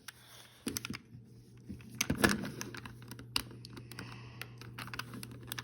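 Hard plastic Rubik's Cube pieces clicking and tapping irregularly as they are handled and pushed into the cube, with one louder click about two seconds in.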